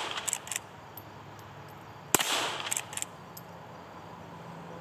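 A .22 LR lever-action Heritage Settler Mare's Leg fired once about two seconds in, a sharp crack with a short echo. Light metallic clicks between the shots are the lever being worked to chamber the next round.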